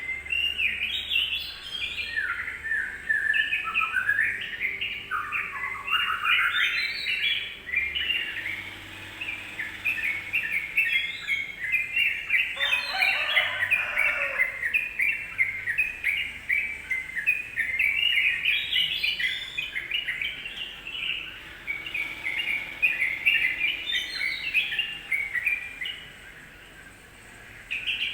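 Yellow-vented bulbul (trucukan) singing a fast, continuous chattering song of quick jumping notes: a lure call played to provoke another trucukan into singing. The song thins out and goes quieter near the end.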